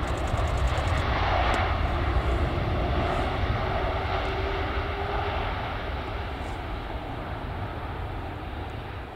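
Boeing 787 airliner's jet engines running loud as it rolls along the runway, building for the first second or so, then slowly fading.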